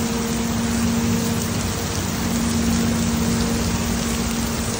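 Steady rain falling on a wet cobblestone street, a constant even hiss, with a steady low hum underneath.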